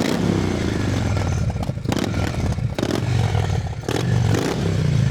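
Harley-Davidson Road King Classic's 96 cubic inch Twin Cam V-twin running with its exhaust flap open, so the pipe is free-flowing. It is blipped up and down several times and is really loud.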